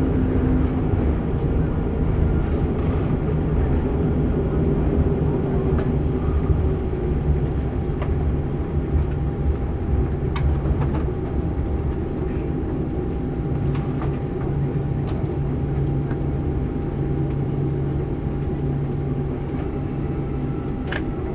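Cabin noise of a Boeing 747-8 rolling slowly on the runway after landing: a steady low rumble from the wheels and the GEnx engines at idle, with a faint steady hum and an occasional light rattle.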